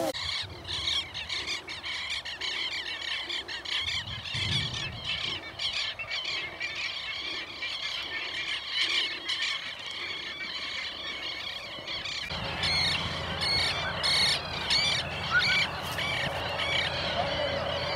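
Excited greyhounds squealing and yelping over and over as they strain at their leashes before a hare course. A low rumble joins in about twelve seconds in.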